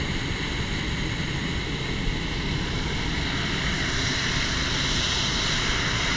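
Hot air balloon's propane burner firing in one long, steady blast: a loud rushing noise with a few constant tones running through it.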